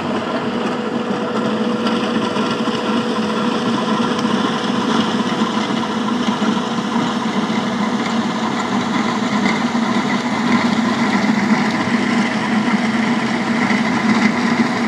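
Diesel engine of a skid-steer loader running steadily with a constant drone.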